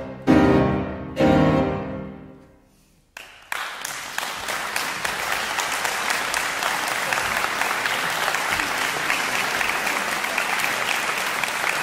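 Violin and piano strike two loud final chords that ring out and die away. After a brief hush an audience breaks into steady applause.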